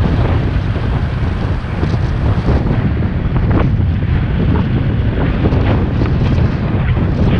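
Loud wind buffeting on the microphone of a motorcycle-mounted camera: an uneven low rumble.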